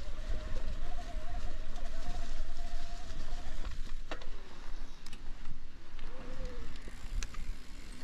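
Orbea Rise electric mountain bike being ridden: its mid-drive motor whines at a wavering pitch for the first few seconds and again briefly later on, over steady tyre and wind rumble, with a few sharp rattles and clicks from the bike.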